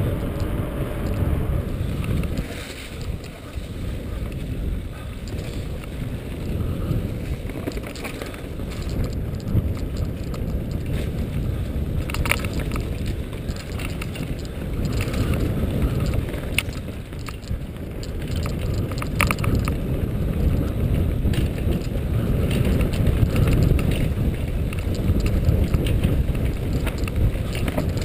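Mountain bike ride heard from the rider's helmet camera: steady wind rumble on the microphone over the noise of the bike rolling and rattling over the ground, with scattered sharp clicks and knocks as it hits bumps.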